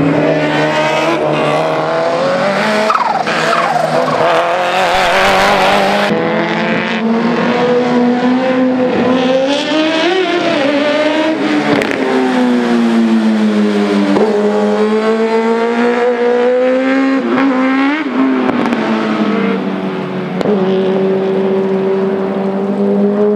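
Competition car engines revving hard and lifting off through tight corners, the pitch climbing and dropping again and again, with tyre squeal. The sound changes abruptly about six seconds in as a second car takes over: first a Lancia Delta Integrale Evo 2, then a Fiat X1/9.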